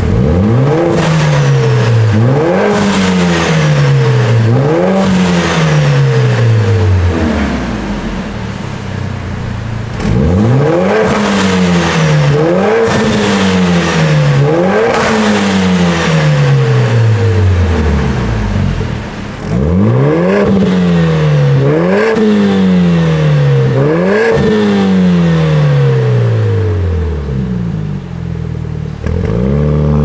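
Mercedes-AMG A45 S's turbocharged 2.0-litre four-cylinder revving loudly through a Fi Exhaust valvetronic catback with its valves open. It goes in three sets of quick blips, each set about three sharp rises in pitch that fall away, with brief drops toward idle between the sets.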